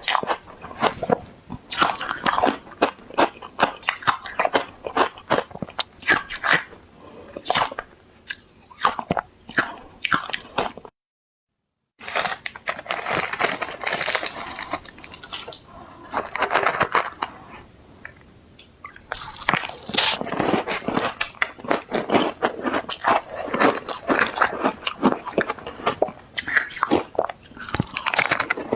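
Ice being bitten and chewed close to the microphone: a dense run of irregular crunches and cracks, broken by about a second of silence near the middle.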